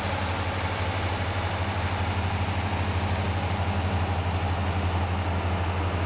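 John Deere 4755 tractor's six-cylinder turbo diesel running steadily under load as it pulls a nine-furrow plough past, a deep even drone that grows slightly louder.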